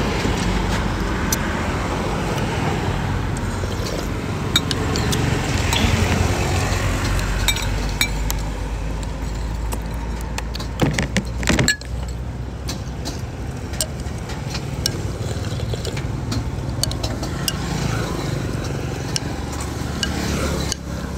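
Steady low outdoor rumble with scattered light clicks of a metal spoon and chopsticks against a ceramic bowl of noodle soup, a louder cluster of clinks about eleven seconds in.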